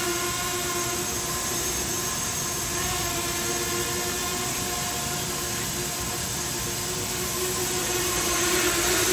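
SJRC F11 4K Pro quadcopter's brushless motors and propellers humming steadily in flight. The hum fades a little as the drone flies off and grows louder again near the end as it comes back.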